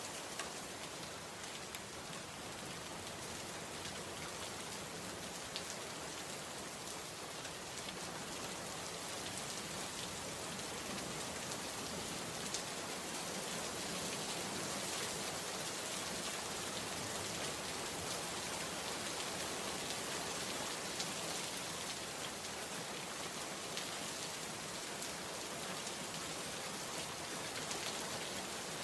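Steady rainfall, an even hiss with a few sharper drop ticks here and there.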